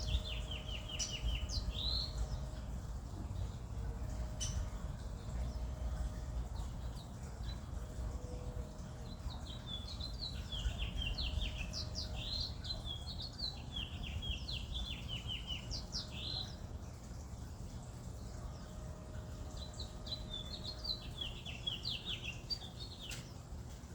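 A small songbird singing in three bursts of quick, high chirping notes: one near the start, a longer one through the middle, and one near the end. A steady low background rumble runs underneath.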